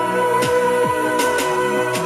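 Music playing: held chords over a steady beat of low, pitch-dropping drum thumps and sharp percussion hits.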